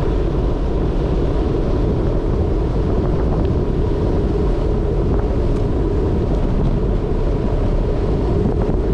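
Steady wind rush buffeting the microphone, mixed with the rumble of tyres rolling over a coarse, gravelly road surface while moving along it, with a few faint ticks.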